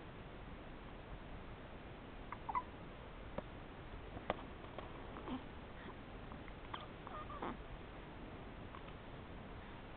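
Baby hiccupping: about half a dozen short, sudden hics at uneven intervals, some with a small squeaky voice to them.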